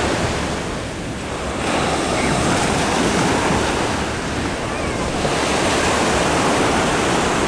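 Sea surf breaking and washing up the beach, a steady rush that eases briefly about a second in and swells again as the next waves break.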